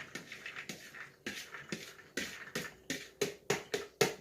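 Spoon and pots clinking and scraping as soaked navy beans are scooped into a bean pot: a string of sharp clicks and knocks that come faster, about three a second, in the second half.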